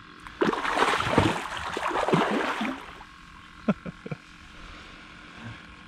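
A hooked channel catfish thrashing and splashing at the water's surface for about two and a half seconds, followed by a few short knocks.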